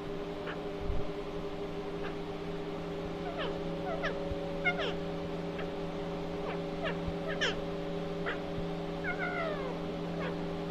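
Alexandrine parakeet making short, squeaky, falling calls, a dozen or so scattered through, most of them from about three seconds in. A steady low hum runs underneath.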